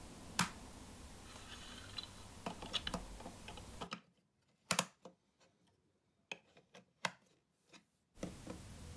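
Large plastic toy building bricks clicking and knocking as they are handled and pressed together: scattered single clicks, the sharpest about half a second in and a quick run of them near the middle, with a few isolated clicks over dead silence later on.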